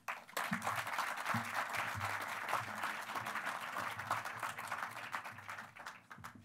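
Audience applauding, many hands clapping together, dying away toward the end.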